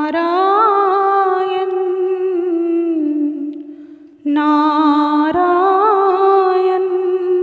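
A voice humming a slow devotional melody in two long held phrases. The first fades away about three seconds in, and the second starts about four seconds in.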